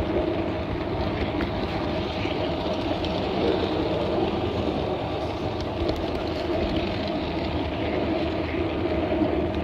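Scale garden-railway train running along the track, heard from on board: a steady drone of motor and wheels on the rails, with a few faint clicks.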